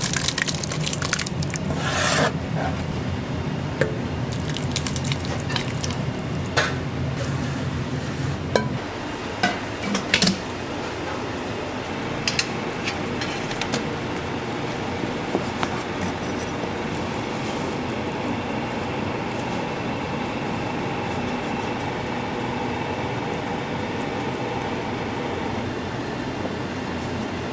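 Wet minced-meat topping scooped and dropped into a stainless steel pot, squishing and slopping, with a few sharp knocks against the metal. About a third of the way in this gives way to a kitchen knife slicing through braised pork belly on a plastic cutting board, with occasional light taps over a steady kitchen hum.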